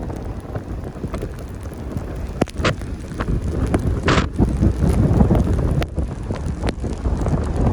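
Strong wind blasting the microphone: a gusting low rumble with a few sharp knocks, and a brief hissing gust about four seconds in.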